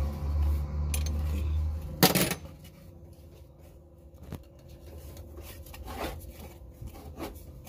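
Metallic clinks from working loose the fan clutch fasteners on a Mitsubishi L300's 4D56 engine: a low hum for the first two seconds, one sharp ringing clink about two seconds in, then a few lighter taps.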